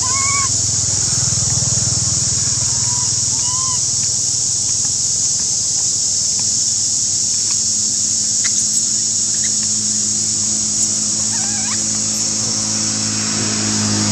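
Steady high-pitched drone of forest insects. Over it come a few short squeaks that rise and fall in pitch: at the start, around three seconds in, and once more a couple of seconds before the end.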